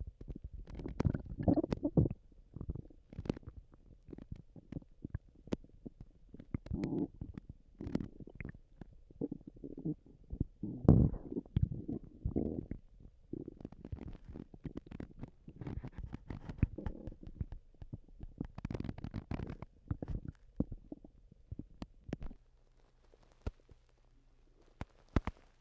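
Human stomach gurgling and rumbling in irregular bursts, with small clicks and pops mixed in. The gurgles stop about three-quarters of the way through, leaving a faint steady hum and a couple of clicks.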